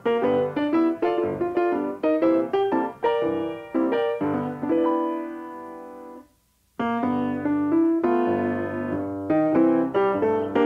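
Piano music: a run of struck notes and chords. About six seconds in a held chord fades out, there is a brief silent gap, and then the playing starts again.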